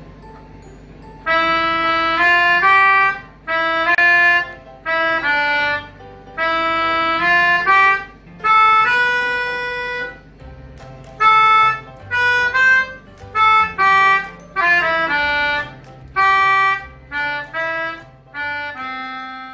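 A melodica playing a simple tune in short phrases of held notes, a child's performance, over a faint low accompaniment.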